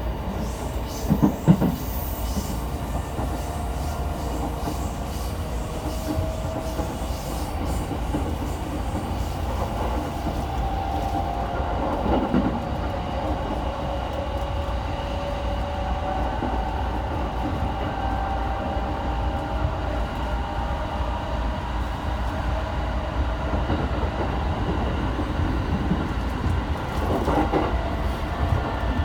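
E217-series electric train running, heard from inside the passenger car: a steady rumble of wheels on rail with the whine of the traction motors gliding in pitch. A few knocks from the rail joints come through, the loudest about a second in.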